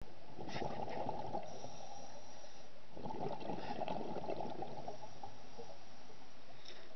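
Scuba diver's regulator exhaust bubbles heard underwater: two bursts of bubbling, about half a second in and again around three seconds in, over a steady muffled underwater hiss.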